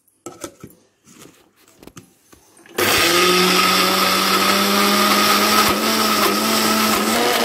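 A few light knocks as the jar and lid are set, then a 750-watt electric mixer grinder switches on about three seconds in. Its motor runs loud and steady with a hum and a whine as it grinds drained, soaked chana dal and toor dal with no water added.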